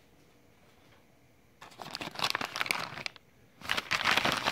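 Plastic mailer bag crinkling as it is handled and pulled at to open it. The sound comes in two spells: one starting about one and a half seconds in, and a louder one starting a little past halfway.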